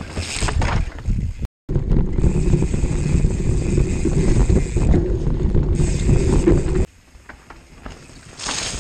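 Mountain bike riding fast on a dirt forest trail. It opens with a close pass-by of tyres on the trail. After a brief cut comes a long stretch of loud wind buffeting on a bike-mounted action camera, mixed with tyre rumble over the ground. This cuts off suddenly about seven seconds in to quieter trail sound, which rises again near the end as a bike approaches.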